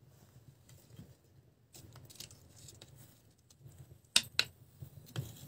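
Faint crackling of the wood fire in a clay bread oven, with a few sharp taps a little after four seconds in as a stick moves the baking loaf.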